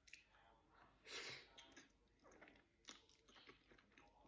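Faint, close-miked chewing of food: soft mouth sounds with a few short crunches, the loudest about a second in.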